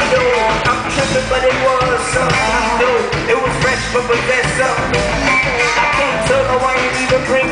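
Live band music: electric guitar and rhythm section playing the song, with a vocal line over it, heard from the audience.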